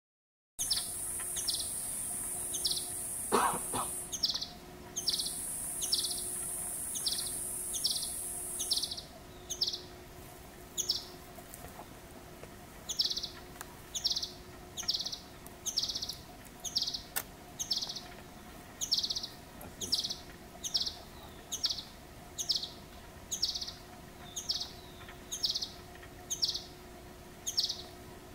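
Male ultramarine flycatcher calling: a short, high note repeated evenly, about one and a half times a second. A steady high hiss runs under the first calls and stops about nine seconds in.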